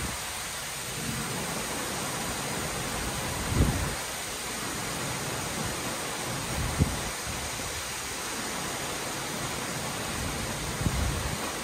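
Heavy downpour: a steady, dense hiss of rain, with three brief low thumps a few seconds apart.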